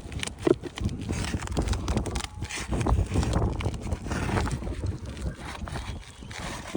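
Wind buffeting the microphone in an uneven low rumble, with a few scattered knocks.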